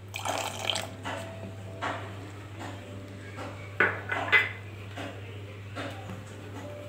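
A utensil stirring a pan of boiled-down milk, scraping and clinking against the pan as the milk is curdled with vinegar. Two sharper knocks come a little past the middle.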